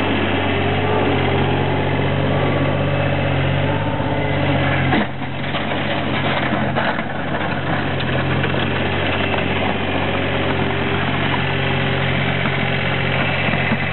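John Deere 5575 skid steer's diesel engine running steadily while plowing snow. About five seconds in the sound changes abruptly and briefly drops, then the engine goes on a little fainter.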